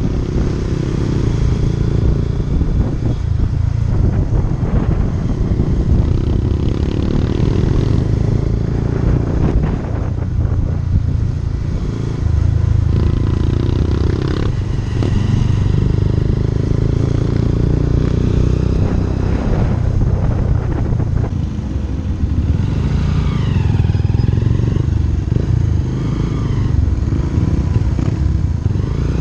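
Motorcycle engine running steadily under way, heard from the rider's on-board camera with road and wind noise over it; the engine note steps up about twelve seconds in. A brief wavering high tone is heard about three-quarters of the way through.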